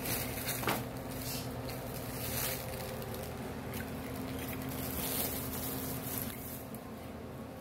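A steady low hum with soft brushing and rustling noises over it, and a sharp click just under a second in.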